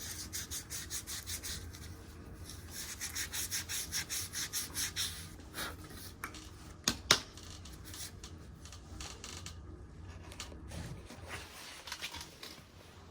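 Cedar peelings rubbed briskly back and forth on a deer shed antler to stain it a natural colour, quick rhythmic scraping strokes for the first five seconds. Two sharp knocks come about seven seconds in, then the rubbing goes on more softly and unevenly.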